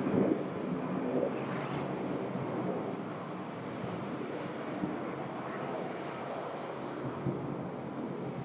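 Bombardier CRJ-900 regional jet's two GE CF34 turbofans, a steady jet rush as the airliner rolls out along the runway just after landing.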